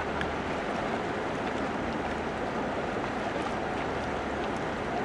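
Steady rushing of river water in rapids.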